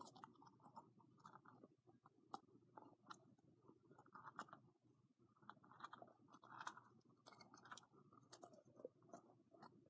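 Near silence with faint, irregular small clicks and soft rustling.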